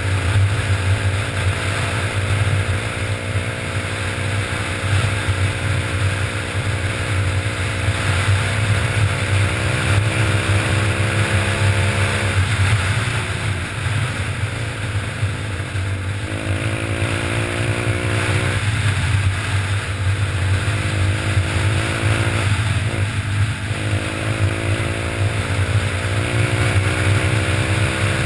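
Pit bike's single-cylinder four-stroke engine running under way, heard from a camera mounted on the bike. The engine note sinks slowly, drops out briefly twice as the throttle is eased, and climbs once as it is opened again.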